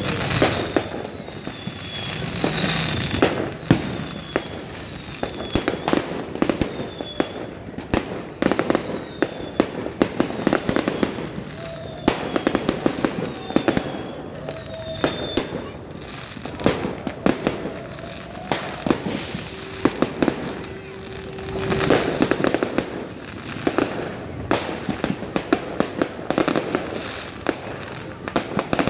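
New Year fireworks going off in a dense barrage: many sharp bangs and crackling bursts follow each other irregularly throughout, with short high falling whistles repeating about every second or two in the first half.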